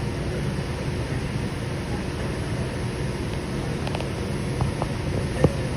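Steady rumble and hiss inside a light rail car, with a few brief clicks about four seconds in and one sharper knock just before the end.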